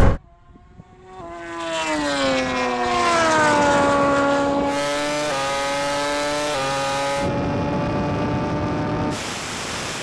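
Red Bull KTM MotoGP bike's 1,000cc V4 engine running at high speed under full throttle: a steady, buzzing engine note that sinks in pitch over a couple of seconds, then holds level with a few small steps in pitch.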